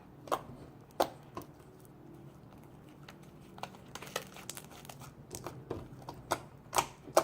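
Clear glue slime being stretched and squished by hand, giving scattered, irregular sticky clicks and pops, with a few louder ones near the end.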